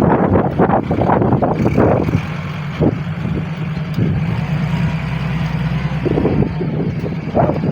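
Strong wind buffeting the microphone in irregular gusts, easing for a few seconds in the middle, over a steady low engine hum.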